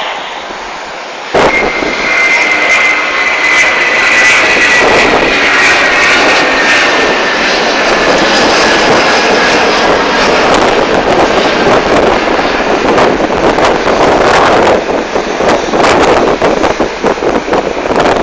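Loud jet aircraft passing close, its engine noise starting abruptly about a second in, with a high engine whine that slowly falls in pitch as it goes by.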